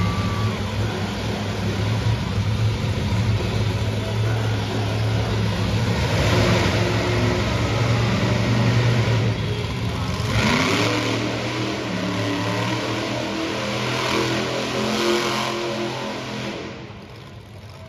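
Monster truck engine running hard, its pitch sweeping sharply upward about ten seconds in as it revs, then holding at several steady speeds before easing off near the end.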